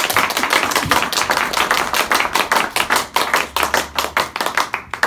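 Small audience applauding with many quick, overlapping hand claps, stopping just before the end.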